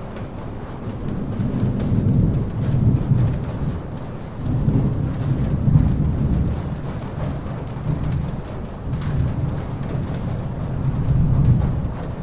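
Steady heavy rain with three long, low rolls of thunder that swell and fade one after another.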